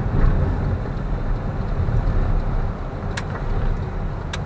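Road and engine noise of a moving car heard inside the cabin: a steady low rumble, with two short sharp clicks about three seconds in and near the end.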